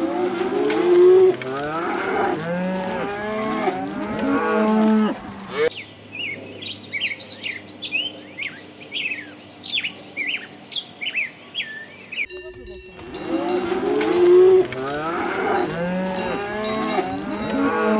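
A herd of cattle mooing, many calls overlapping. For several seconds in the middle this gives way to rapid high-pitched chirping over a steady low hum, then the mooing returns.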